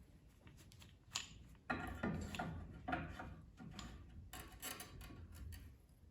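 Faint metallic clicks and a short scrape: the newly riveted slot jaw tongs are handled and their jaws worked at the joint.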